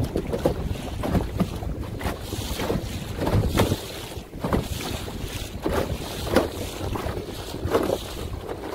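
Wind buffeting the microphone over choppy lake water, with small waves splashing against the canoe about once a second.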